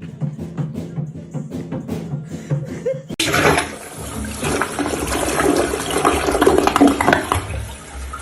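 Music with a steady beat, then about three seconds in an abrupt cut to a loud rushing noise of running water that swells and eases off near the end.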